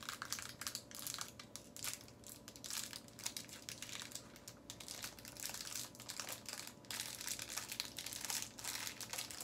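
Plastic packaging crinkling and crackling as it is handled and opened, an irregular run of crackles throughout.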